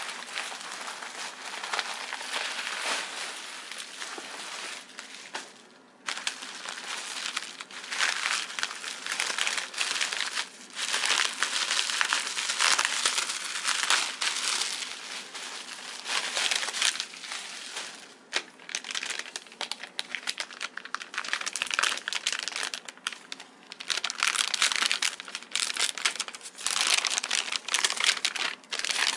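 Bubble wrap and a silver anti-static bag crinkling and rustling as an electronics board is unwrapped by hand, in irregular bursts with a brief pause about six seconds in.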